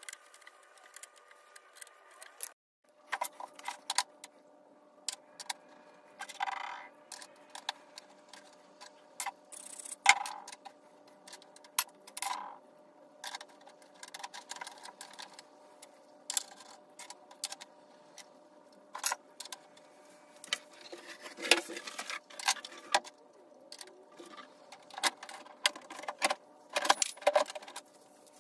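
Irregular clicks and clinks of small metal parts being handled and set down, with a few short scraping sounds, over a faint steady hum.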